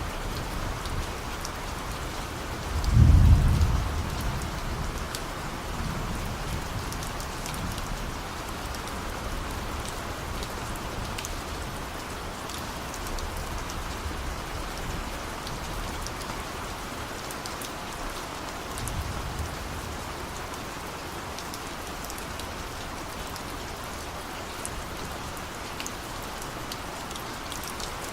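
Steady rain falling, with distant thunder rumbling low: a loud roll about three seconds in, and fainter rumbles a few seconds later and again past the middle.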